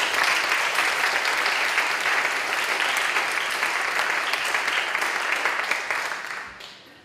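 Audience applauding: many people clapping at a steady level, fading out about six seconds in.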